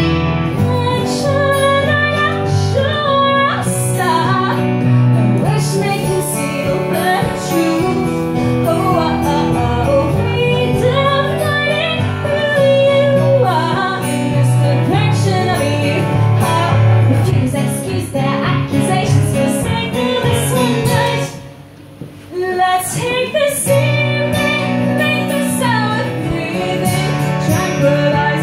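Live acoustic song: a woman singing over piano chords from an electric stage keyboard and an acoustic guitar. The music thins out and drops briefly about three-quarters of the way through, then picks up again.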